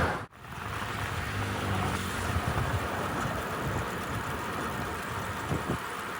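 Wind buffeting the microphone over a steady road rumble, as on a moving ride outdoors; the sound drops out sharply for an instant about a quarter second in, like an edit cut.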